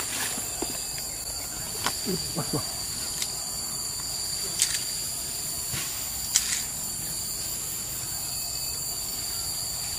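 Steady high-pitched insect chorus, with a few sharp clicks and faint brief low sounds in between.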